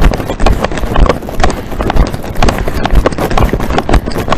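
Loud, uneven thumps and knocks, roughly two a second, each with a heavy low thud.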